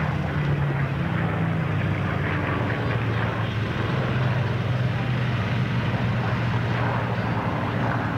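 A pair of Spitfires' V12 piston engines droning as the fighters fly by in formation, the engine note sinking slowly in pitch, over a background of wind and crowd noise.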